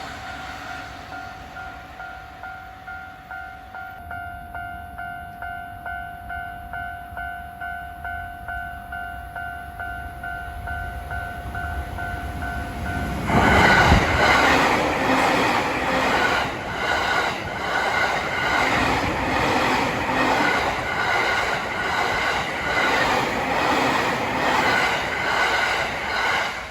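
Japanese level-crossing warning bell ringing in a steady pulsing rhythm. About 13 seconds in, a Tokaido Line train rushes over the crossing at speed. Its wheels clatter regularly over the rail joints under the still-ringing bell until near the end.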